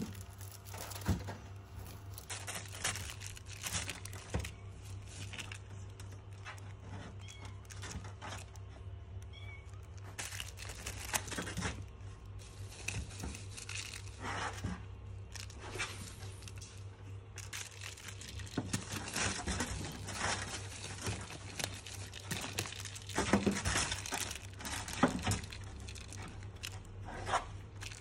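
A kitten scrabbling and pouncing among plastic-wrapped packages: irregular crinkling and rustling of plastic film, in clusters, over a low steady hum.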